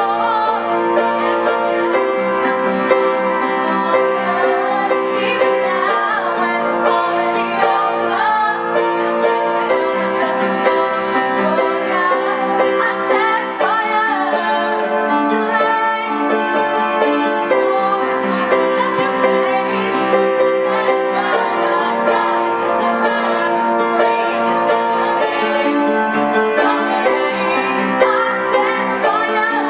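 A young female solo voice singing a pop ballad over steady instrumental accompaniment.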